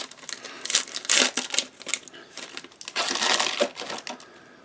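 Trading cards being handled and slid against one another, a dry crinkling rustle in uneven bursts.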